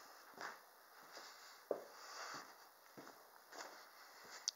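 Faint, irregular footsteps and rustling on a barn floor strewn with loose hay.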